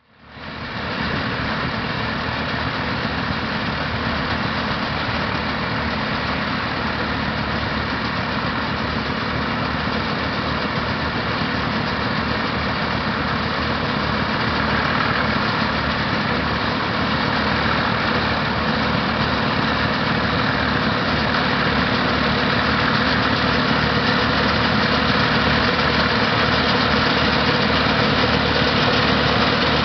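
Case DC4 tractor's four-cylinder engine running steadily under load while pulling a Case binder through a maize crop, growing a little louder as the tractor comes closer.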